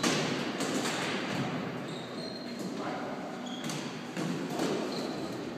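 Floorball play in a sports hall: sticks and the plastic ball knocking irregularly, the loudest knock right at the start, with a few short high squeaks of sneakers on the gym floor, all echoing in the large hall.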